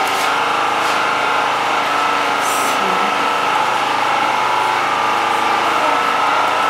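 A steady motor hum made of several held tones, with a short hiss about two and a half seconds in.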